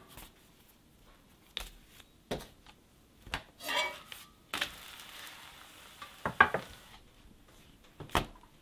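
A metal knife clinking and scraping against a cast iron skillet as a crepe is lifted and turned, with scattered sharp clicks. A short stretch of sizzling comes from the hot pan about halfway through.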